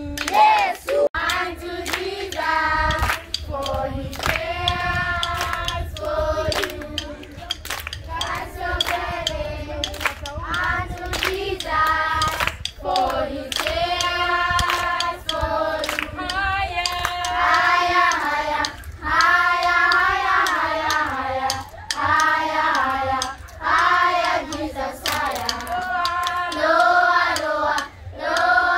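A group of children and women singing a Christian praise song together, with hand clapping along to it.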